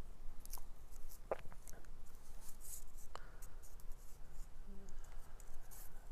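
Fingers peeling and working the black plastic sleeve off a rod piezo pickup: faint scratching and rustling with a few small clicks, two of them sharper, at about one and three seconds in.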